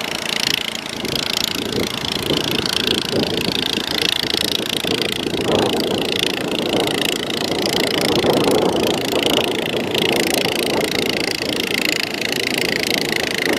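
A fishing boat's outboard motor running steadily as the boat pushes through the shallows, with the wash of small breaking waves around it.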